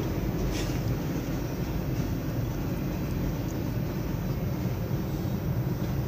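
Mixed freight train rolling by slowly as it slows down: a steady low rumble.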